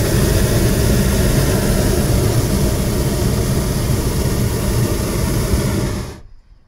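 Hot-air balloon's propane burner firing in one long blast: a loud, steady roar that cuts off abruptly near the end.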